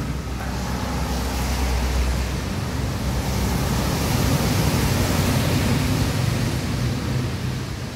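Road traffic on a wet road: a truck passing close by, its engine rumble and tyre hiss swelling through the middle and easing off near the end.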